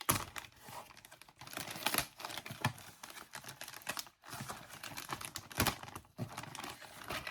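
Packaging and small parts being handled: dense rustling, crackling and clicking with a few sharper knocks, pausing briefly about four seconds in.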